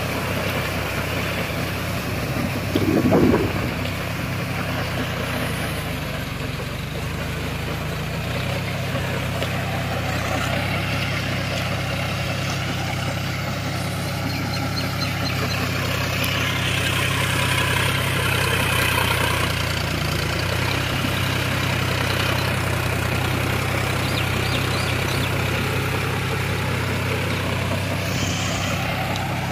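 John Deere tractor's diesel engine running steadily under load, driving a rotavator that churns through wet paddy mud and water.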